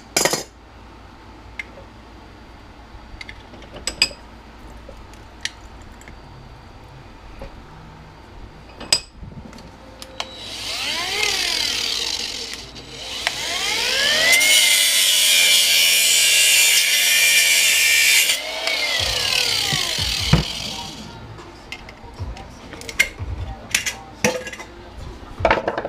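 Handheld angle grinder run twice on metal: a short burst about ten seconds in, then a longer run of about six seconds. The motor whine rises as it spins up and falls as it spins down, under a harsh grinding hiss. Light clicks and knocks from parts being handled come before and after.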